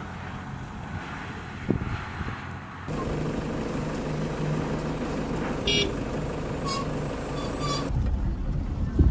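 A motor vehicle's engine running with a steady hum that gets louder about three seconds in and eases back near the end, with a short high tone about halfway through.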